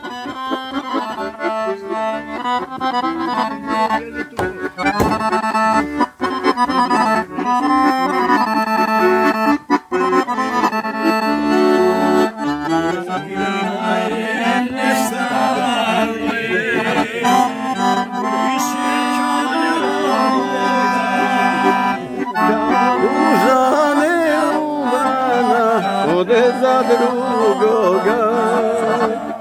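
Scandalli piano accordion playing a folk melody over held bass notes, the bass shifting lower about twelve seconds in.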